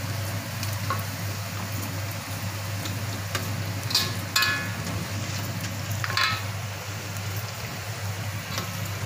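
Dried cooked rice (nasi kering) frying in hot oil in a metal wok, sizzling steadily. A slotted metal spatula scrapes and clinks against the wok a few times, twice around four seconds in and once around six seconds in.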